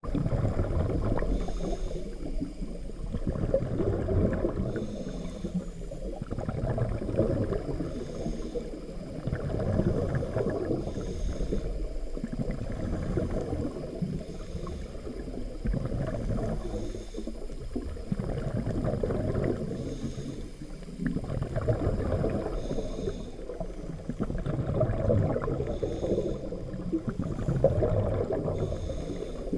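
A diver's breathing heard underwater through the camera housing: a muffled rumble of bubbles that swells and fades about every three to four seconds, with a faint hiss at each breath.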